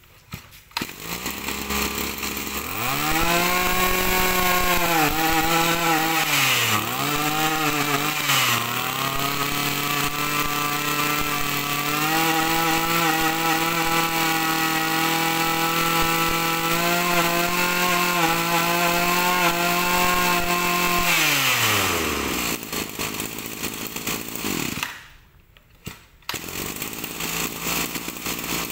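Echo 25cc two-stroke brush cutter engine started and run: it revs up, the throttle drops back briefly twice, then it holds a high steady speed before shutting off, its pitch falling away about 22 seconds in. After a short quiet, other noise follows near the end.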